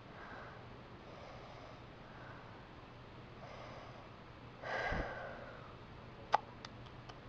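A quiet room with a faint low hum. Just under five seconds in, a person makes a short breathing sound, and about a second and a half later there is one sharp click, followed by a few faint ticks.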